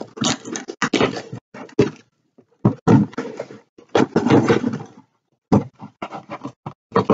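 Scissors cutting and scraping through packing tape along a cardboard box's seam, in irregular bursts with two short pauses.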